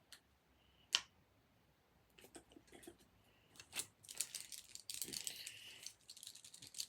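Plastic fidget toys being handled: a few sharp clicks, then from about four seconds in a dense crackling rattle lasting about two seconds, which comes back near the end.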